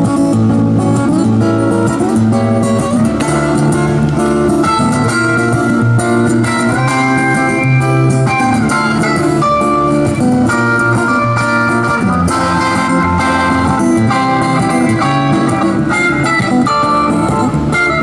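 Acoustic-electric guitar played through a small Roland amplifier: a picked melody of held notes over low bass notes.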